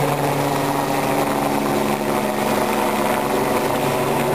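Helicopter flying away after lifting off from a landing zone, its rotor and turbine running with a steady drone.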